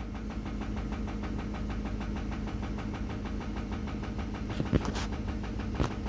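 Ford 5.4L Triton V8 idling at operating temperature with a fast, even knock running through it. Its oil pressure is falling as it warms, and the owner is unsure whether the knock is rod knock. A couple of light clicks come near the end.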